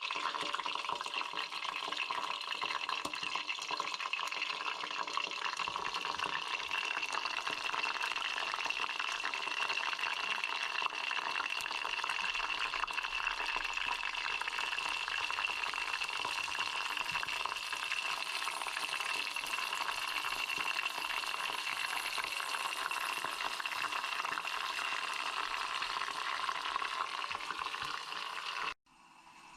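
Hornet larvae deep-frying in hot oil: a steady sizzle that cuts off suddenly near the end.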